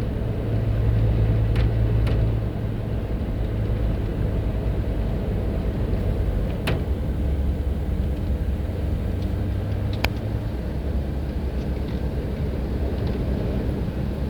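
Car driving at road speed, heard from inside the cabin: a steady low engine and tyre rumble. A low hum in it drops away about two and a half seconds in, and there are two brief clicks near the middle.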